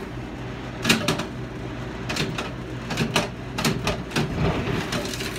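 Metal jingle cones of a jingle dress clinking in short clusters of sharp, bright strikes, roughly in step with walking, over a steady low hum.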